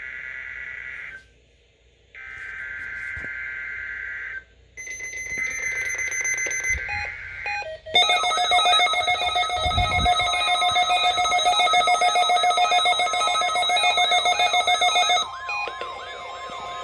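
NOAA Weather Radio Emergency Alert System weekly test signals: three short bursts of the buzzy digital header data with brief gaps between them, then the loud warning alarm, a shrill multi-tone alarm with a rapid repeating warble that drops to a quieter, steadier tone about 15 seconds in.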